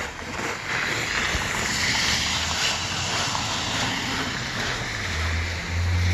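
Snow shovel blade pushed along a partly cleared sidewalk, a steady scraping hiss of blade and snow over pavement. About five seconds in, a low steady hum comes in under it.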